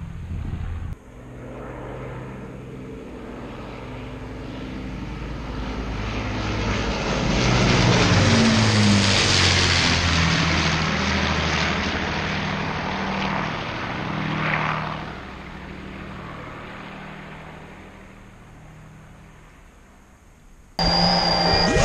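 Avro Lancaster bomber's four Rolls-Royce Merlin V12 piston engines passing low overhead: the engine drone grows louder, is loudest about ten seconds in, drops in pitch as the plane passes, then fades away.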